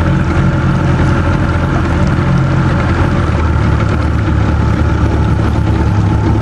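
Motorboat engine running steadily, with a slight change in its deepest note a little after three seconds in.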